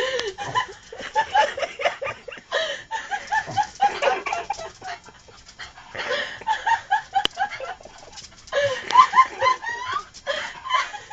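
Small white terrier making runs of short, high yelping calls while spinning after its own tail, with a few brief pauses between runs.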